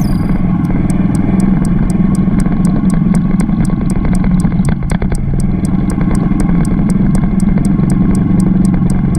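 Motorcycle engine running steadily under way, with a faint, even high ticking about five times a second.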